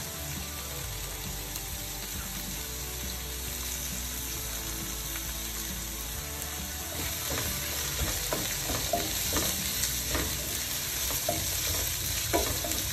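Sliced red onions sizzling in hot coconut oil in a frying pan. About halfway through the sizzle turns louder and more crackly as the onions are spread and stirred, with a wooden spatula scraping through them near the end.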